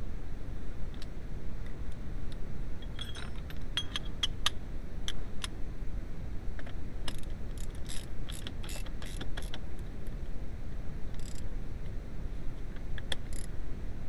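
Socket ratchet clicking in quick bursts as the steering wheel's centre nut is run down onto the column, with a few last clicks near the end.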